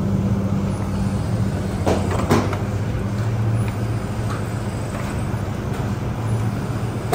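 Electric motor and drive of a bakery dough-dividing machine running with a steady hum, with two sharp clacks about two seconds in.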